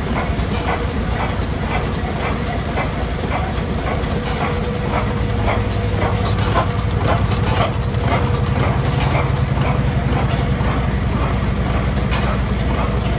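Vintage horizontal stationary oil engines with heavy flywheels running slowly, the nearest knocking steadily at about two beats a second over a low rumble.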